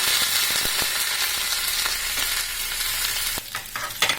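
Neem flowers sizzling in hot ghee in a small tempering ladle. The steady sizzle drops away about three and a half seconds in, leaving scattered crackles and scrapes.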